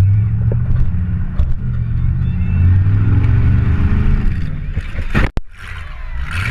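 Demolition derby car's engine running hard and revving up and down, heard from the driver's seat. A sharp bang comes about five seconds in, the engine briefly drops, and then it revs up again near the end.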